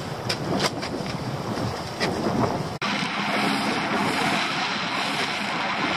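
Wind buffeting the microphone in a small open boat, with a few knocks. After a sudden break just under three seconds in, the boat is under way: a steady rush of wind and water over the low, even hum of its outboard engine.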